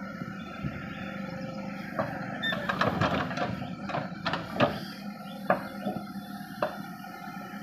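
Caterpillar 424B2 backhoe loader's engine running steadily while its rear bucket digs into and lifts a load of soil, with a burst of clanks and knocks about two seconds in and a couple of single sharp knocks after it.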